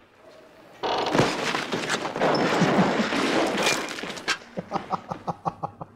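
A sudden loud crashing noise about a second in that dies away over a few seconds, followed by a man laughing in short bursts.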